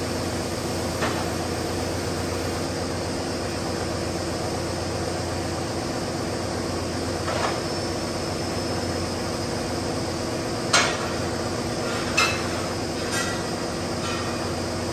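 Steady hum of factory machinery, with a handful of sharp metallic clanks and clinks of steel, the loudest about eleven seconds in and a quick cluster of them shortly after.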